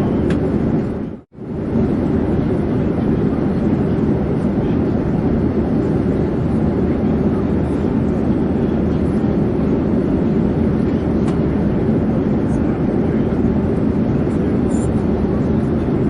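Steady drone of an airplane in flight, a deep, even rush with no change in pitch. It cuts out briefly about a second in and comes straight back.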